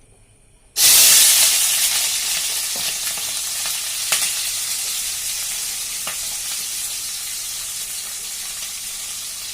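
Diced onions going into hot refined oil in a kadai: a loud sizzle starts suddenly about a second in and slowly dies down, with a few light clicks.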